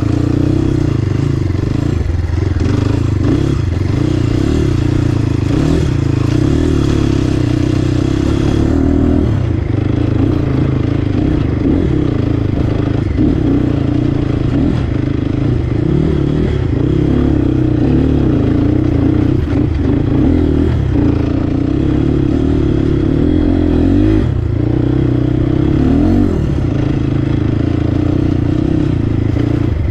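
Crossfire HJ250 dirt bike's engine running at a low, steady pace, its note wavering a little with the throttle, while the bike clatters over loose rocks.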